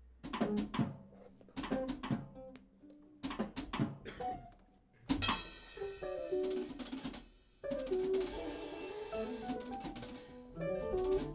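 Small band of drum kit and guitars improvising on hand cues: short separate stabs and drum hits with gaps between them, then the band playing together from about five seconds in, with a brief break near seven and a half seconds.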